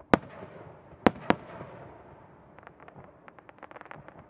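Aerial firework shells bursting: one sharp bang, then two more in quick succession about a second in, each echoing and rumbling away. In the second half comes a rapid run of small crackling pops as the stars break up.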